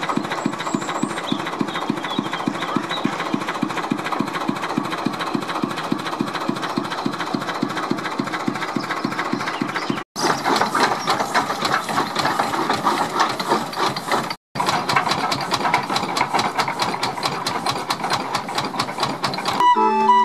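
Small narrow-gauge Motor Rail industrial locomotive's engine idling with a rapid, even knocking beat. After about ten seconds a busier, faster mechanical clatter takes over, and near the end a fair organ starts playing.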